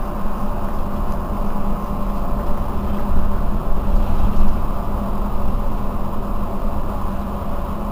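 Mercedes-Benz Citaro C2 city bus engine running steadily: a constant low rumble with a steady drone, no sharp changes.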